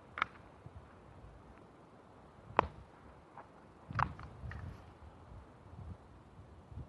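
A few short, sharp clicks and knocks, three main ones spread over several seconds, over a faint quiet background: handling noise while a .22 LR rifle shot is being readied.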